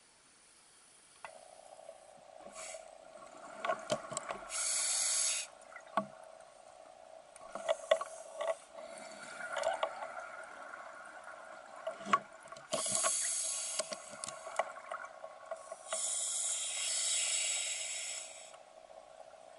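A scuba diver breathing underwater through a regulator: a long hiss with each inhalation every several seconds, and crackling clicks and pops of exhaled bubbles in between.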